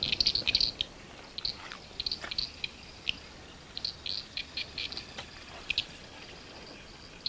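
Scattered short, high chirps of small wild animals in quick irregular clusters, over a faint steady high whine.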